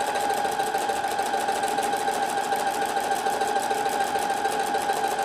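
Husqvarna Viking Platinum Plus sewing machine running steadily in permanent reverse, a constant motor whine over the rapid, even ticking of the needle, stitching a very short mending stitch back over a tear.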